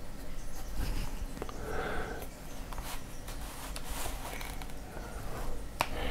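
Faint scattered clicks and rustles of handling, with a short breathy sound about two seconds in.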